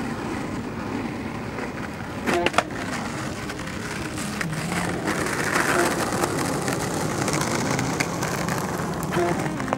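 Skateboard wheels rolling on rough asphalt, with a quick cluster of sharp clacks from the board about two and a half seconds in.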